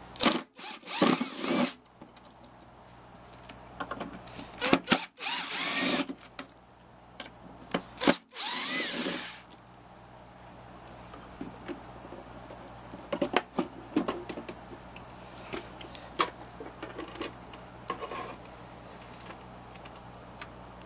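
A cordless drill/driver runs in three short bursts, each spinning up, as it backs out tight screws. After the bursts come scattered small clicks and knocks of the loosened screws and panel being handled.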